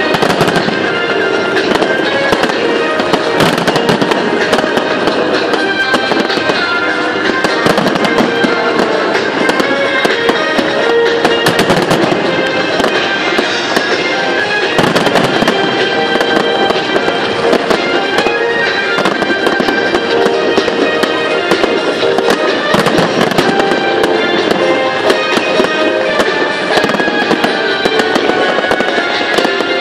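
Fireworks display: a dense, continuous barrage of shells bursting, with music playing along.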